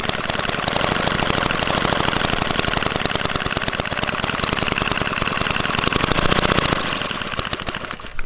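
Small Hoglet model V-twin engine running fast and evenly, a rapid train of firing beats. Near the end the beats thin out and fade as the engine winds down.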